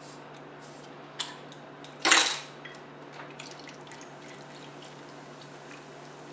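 A crown-capped bottle of Guinness Extra Stout opened with a bottle opener: a small click, then a short hiss as the cap comes off about two seconds in. The stout is then poured into a crock pot over a roast, a faint splashing and dripping.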